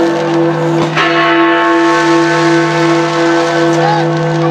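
Fireworks display with a sharp firework bang about a second in, over crowd noise and a steady held chord of ringing tones.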